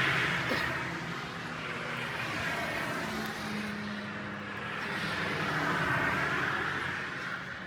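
Blizzard wind blowing in strong gusts, swelling and easing twice before dying down near the end.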